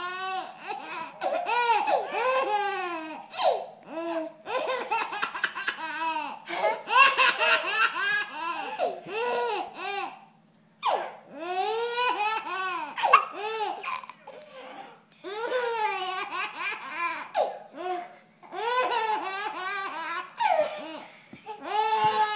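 A baby and a toddler laughing, bout after bout of high-pitched giggling laughs with brief pauses between bouts.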